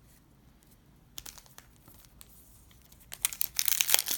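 Wrapper of a Topps Chrome trading-card pack crinkling and being torn open: a few scattered crackles at first, then a loud burst of dense crinkling and tearing near the end.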